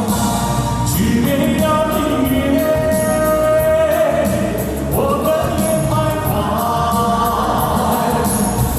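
Music with singing: several voices hold long, steady notes over instrumental accompaniment.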